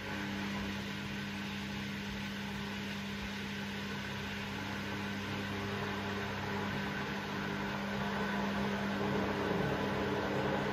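Front-loading washing machine running with a steady electric hum while its drum stands still, growing slightly louder near the end.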